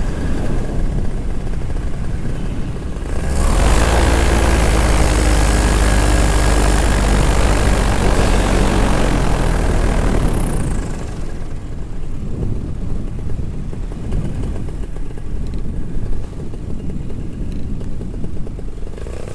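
Paramotor engine and propeller running in flight. About three and a half seconds in it grows much louder for some seven seconds, then falls back to the earlier level.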